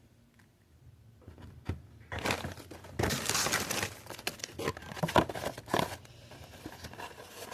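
Packaging crinkling and rustling as it is handled, with small clicks and taps, starting about two seconds in and loudest shortly after.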